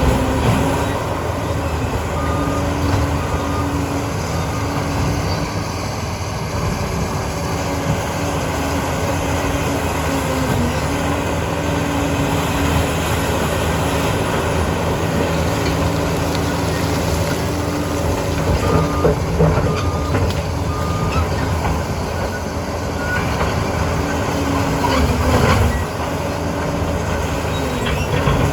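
Liebherr PR 746 crawler dozer working, its diesel engine running steadily with track noise underneath. A backup alarm beeps in short runs of a few beeps, near the start and again about two-thirds of the way through.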